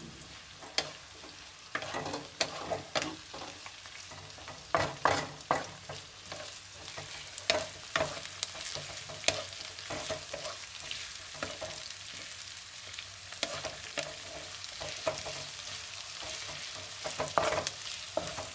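Chopped vegetables sizzling as they are stir-fried in hot oil in a kadhai, a steady hiss broken by the scrapes and knocks of stirring against the pan at irregular intervals, with a run of knocks about five seconds in and another near the end.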